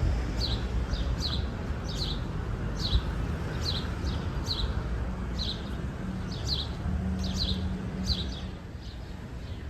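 A bird chirping over and over, short falling chirps about every half second, over a steady low rumble.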